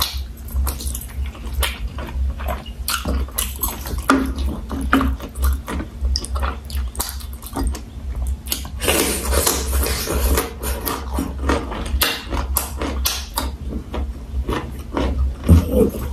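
Close-miked mouth sounds of a person chewing boiled cow penis: a steady run of quick smacking clicks, thickening into a denser stretch of chewing noise about nine seconds in.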